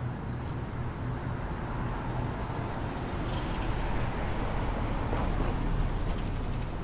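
Steady street traffic noise: an even outdoor city hum with a low rumble.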